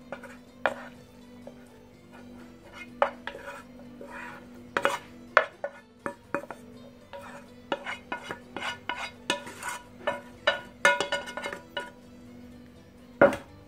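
A utensil scraping and knocking against a metal frying pan as cooked onion-and-parsley filling is pushed out of it: irregular scrapes and clinks, some ringing briefly, with a sharp knock near the end.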